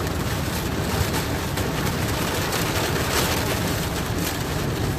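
Car driving through a heavy thunderstorm, heard from inside the cabin: steady rain and road spray on the car over the low drone of the engine and tyres.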